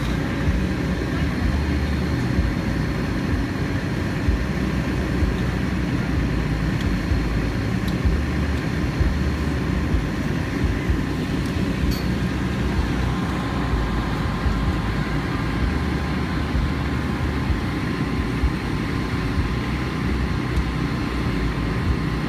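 Fire truck engine running steadily: a low rumble with faint, steady whining tones above it.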